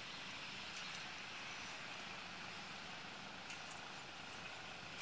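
Quiet, steady outdoor background noise with no distinct event, only a couple of faint ticks about three and a half seconds in.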